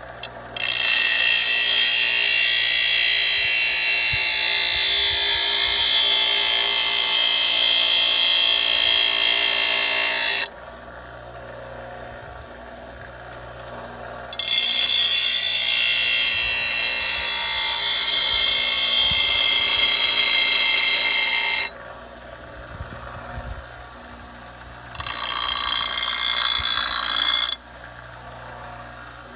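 Power grinder sharpening a steel mower blade: three grinding passes, a long one of about ten seconds, then one of about seven seconds, then a short one of two or three seconds, with a steady low hum between them.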